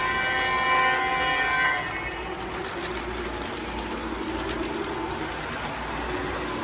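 O gauge model train's electronic diesel horn sounding steadily for the first two seconds or so, then the running noise of the model trains on the three-rail track.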